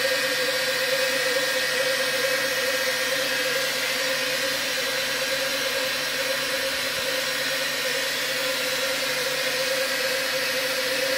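FEBA F600 SL single-knife lathe slitter running, its circular knife and the foam log spinning through a slitting cut. It makes a steady, unbroken hiss over a steady hum.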